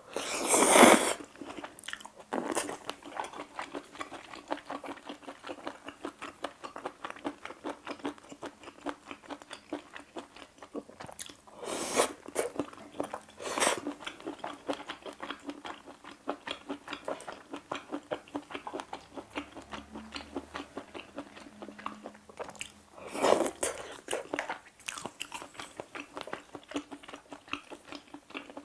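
Close-miked chewing of spaghetti with shrimp and mushrooms: steady rapid wet mouth clicks. A loud noodle slurp comes right at the start, with shorter slurps a little before halfway and again near the end.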